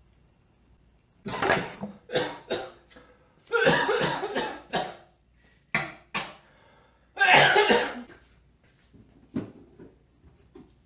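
A person coughing hard in a series of loud fits, about five over six or seven seconds, trailing off into fainter coughs near the end.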